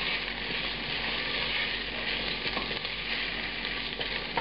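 Large white beans sizzling in duck fat with shallots and garlic in a stainless steel pot over medium-high heat, stirred with a wooden spatula: a steady frying hiss with light scraping and a few faint ticks.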